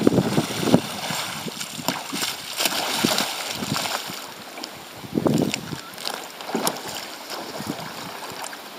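Small choppy waves lapping and slapping against a kayak's hull, with water splashing around a capsized kayak and wind on the microphone. The slaps come irregularly, loudest in the first second and again about five seconds in.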